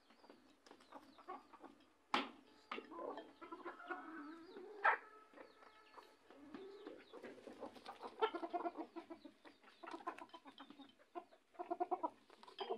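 A flock of desi chickens clucking as they forage, short calls coming in quick runs, with a few sharp clicks about two and five seconds in.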